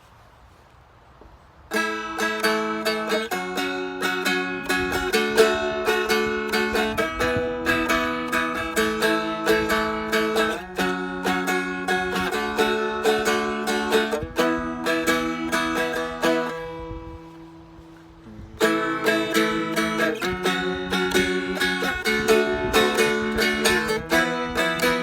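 All-mahogany Seagull Merlin, a four-string dulcimer-style instrument, strummed in quick chords over sustained drone notes, starting about two seconds in. Past the middle the strumming stops and a chord rings out and fades for a couple of seconds, then the strumming resumes.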